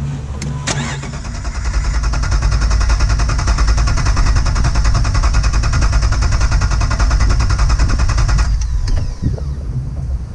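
Jeep Wrangler TJ engine being turned over by its starter for about seven seconds, a fast even pulsing that stops abruptly without the engine catching. It cranks but does not fire even with starting fluid in the intake.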